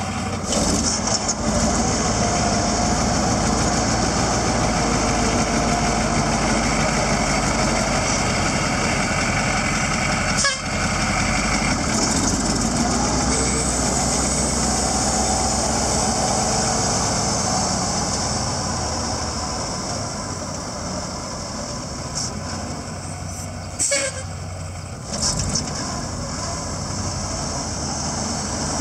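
1978 Ford spreader truck's engine running as the truck drives slowly around, growing somewhat softer in the second half as it pulls away. Two brief sharp knocks come through, one midway and one near the end.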